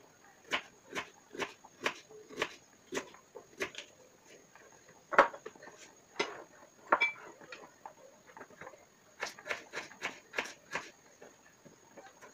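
Kitchen knife slicing through firm peeled produce and knocking on a wooden chopping board: sharp knocks about two a second, the loudest about five seconds in, then a quicker run of strokes near the end.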